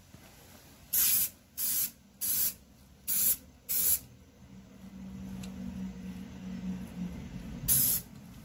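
Aerosol spray paint can hissing in short bursts onto cast-iron hex dumbbells: five quick sprays in about three seconds, then one more near the end. The short, light passes lay down a thin coat of paint.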